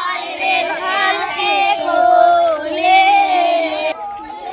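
A group of voices singing together in long, slowly wavering notes, breaking off about four seconds in.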